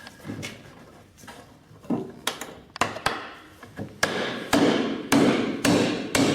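Hammer blows on wood, knocking a glued wooden part into place. A few scattered light taps come first, then from about four seconds in a steady run of heavier blows, roughly two a second.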